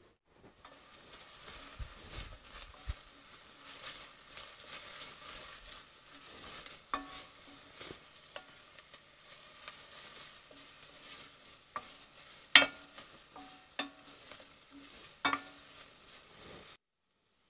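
Diced onion and garlic sizzling gently in an enamelled cast-iron pot while a wooden spoon stirs them, knocking against the pot several times with a short ring; the loudest knock comes about two-thirds through. The sound cuts off suddenly near the end.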